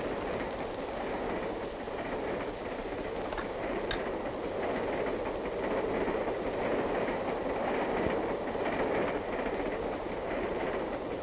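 Steady rumble of a moving passenger train heard from inside the railway car, with a couple of faint clicks about three and a half to four seconds in.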